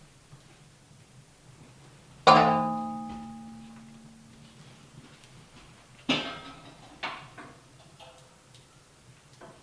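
A sharp metallic strike about two seconds in that rings with several tones and dies away over about two seconds, followed by three shorter knocks later on.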